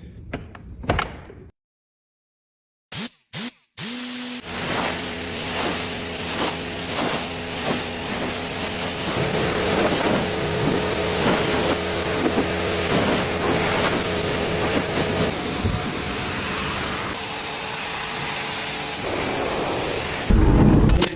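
A car-cleaning machine's steady spraying hiss over a low hum, starting after a brief dead silence a few seconds in and stopping just before the end.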